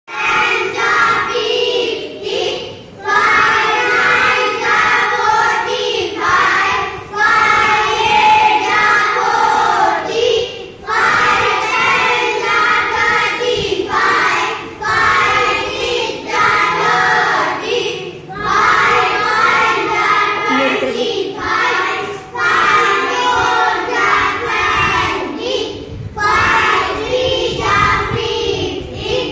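A class of young children chanting multiplication tables backward in unison, in singsong phrases broken by short pauses every few seconds.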